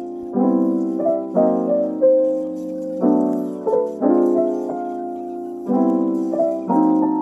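Background piano music: gentle, slow chords struck about once a second with a simple melody above.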